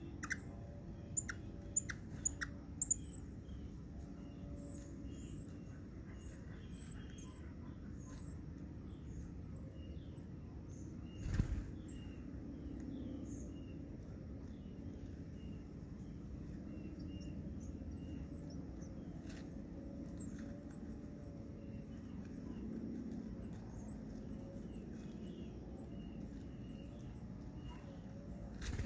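Small birds chirping: a long run of short, very high-pitched chirps over a low steady rumble, with a few sharp clicks in the first three seconds and a single knock about eleven seconds in.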